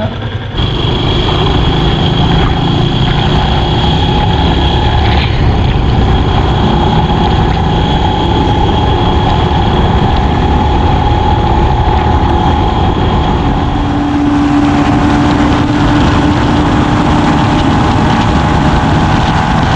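Motorcycle running steadily at cruising speed, its engine note mixed with heavy wind and road rush over the microphone. A second steady hum joins for a few seconds about fourteen seconds in.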